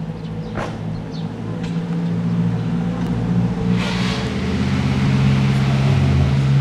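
An engine running steadily, its low hum slowly growing louder and shifting in pitch. A short hiss comes about half a second in, and a louder rushing hiss about four seconds in.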